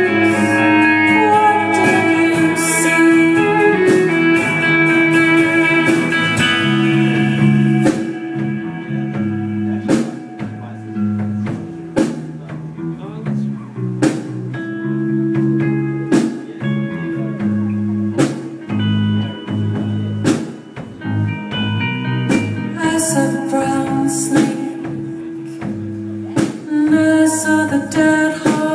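Live rock band playing an instrumental passage on electric guitar, bass guitar, violin and drums. It is full and dense for the first eight seconds or so, then thins out to held notes with single drum hits about every two seconds, and fills out again near the end.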